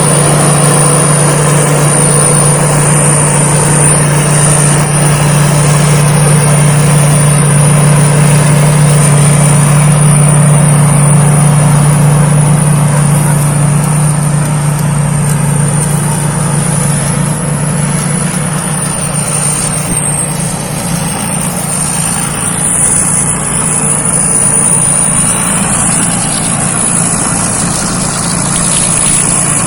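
Thai Seng Yont rice combine harvester's diesel engine running steadily, with a thin high whine above it that wavers slightly; it gets a little quieter about halfway through.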